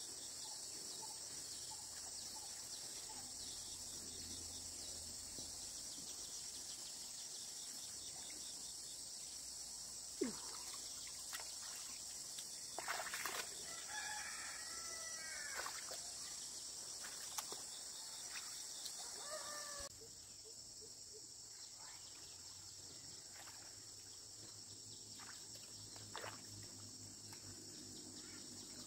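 A rooster crows once about halfway through, over a steady high-pitched drone of insects. There are a few faint knocks.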